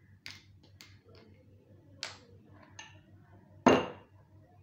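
Handling of a plastic soft-drink bottle and a glass of ice cubes: a few light clicks and taps, then one loud glass clink with a short ring about three and a half seconds in.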